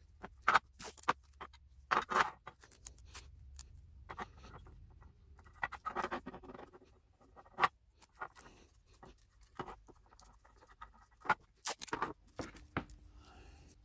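Rusty steel mining lamp housing and its small parts handled in gloved hands and set on a wooden table: scattered light clicks, knocks and short scrapes at irregular intervals.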